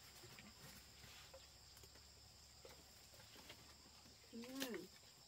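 Near silence: faint ticks of a knife shaving a bamboo stick over steady high insect noise. About four and a half seconds in comes one short call that rises and then falls in pitch.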